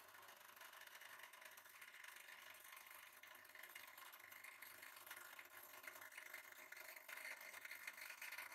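Hydraulic press running as its perforated plate crushes a head of cabbage in a steel cup: a faint, steady whirring hiss with a fine crackle, growing a little louder toward the end.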